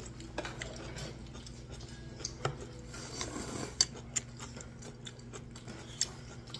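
A few light, scattered clicks of metal chopsticks against a bowl as noodles are picked up, over a steady low room hum.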